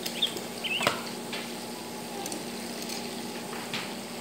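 Steady sizzling hiss of chicken frying in a pan of hot oil, with a few sharp clicks and knocks of handling, the loudest about a second in.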